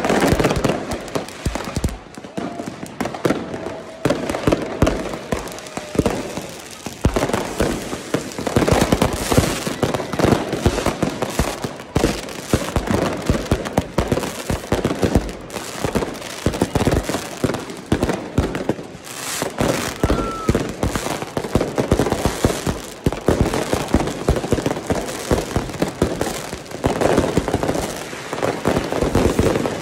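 Firecrackers and fireworks going off at close range in a dense, unbroken barrage of bangs and crackling.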